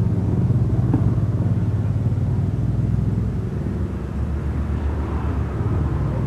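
Old diesel engine converted to run on petrol, fitted in a motorcycle, running steadily with an even, rapid firing beat. It eases off slightly a little past halfway.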